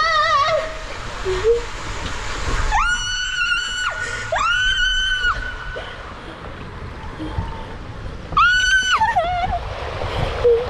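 A woman's high-pitched screams as she rides down a water slide, with water rushing and splashing along the flume beneath her. One scream trails off right at the start, two long held ones come about three and four and a half seconds in, and a shorter one comes near eight and a half seconds.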